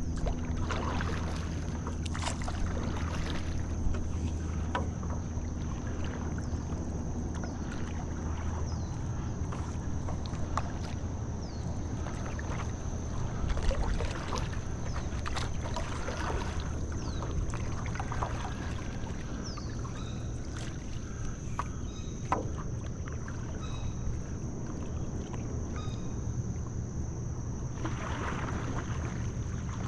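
Stand-up paddleboard paddle working calm river water: the blade dipping and pulling with scattered small drips and splashes, over a steady low rumble.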